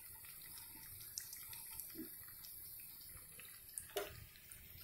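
Egg pakoras sizzling faintly in hot frying oil, a steady hiss with a few light clicks and a sharper tap about four seconds in.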